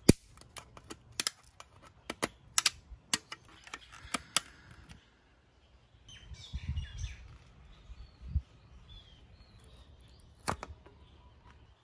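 Sharp clicks and snaps of hard plastic Givi top-case trim and reflector parts being handled and fitted together, a rapid run of them over the first four seconds or so and one more near the end. Birds chirp faintly in the background around the middle.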